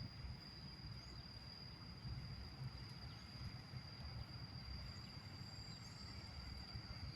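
Insects singing in one steady high-pitched tone, with a low uneven rumble underneath.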